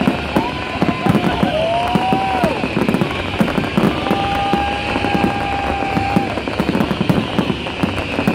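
A fireworks display: a dense, rapid run of bangs and crackles throughout. Several whistling tones sound over it, a few bending down in pitch in the first seconds and one held steady for about two seconds midway.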